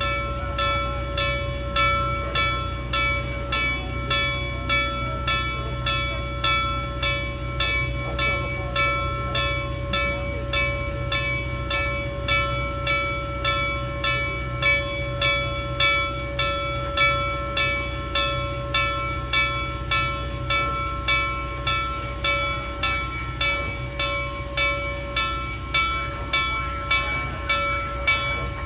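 Reading & Northern 2102, a T-1 class 4-8-4 steam locomotive, ringing its bell in a steady, even rhythm as it creeps forward, over a low rumble.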